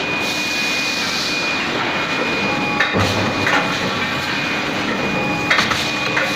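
Nut hot forging machine running, a steady machine noise with a thin high whine, and lighter clanks about three seconds in and again near the end.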